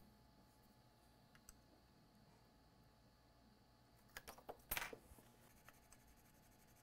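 Near silence, broken a little past four seconds in by a short cluster of small clicks and taps, as of hand tools being handled on a workbench.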